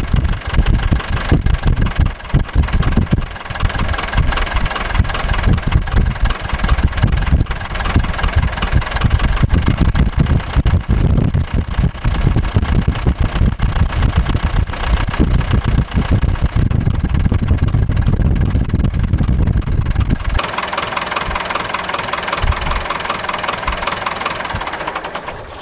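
Ford 5000 tractor's four-cylinder diesel engine running steadily at idle. About twenty seconds in, the deep low rumble falls away and a lighter, higher running sound is left.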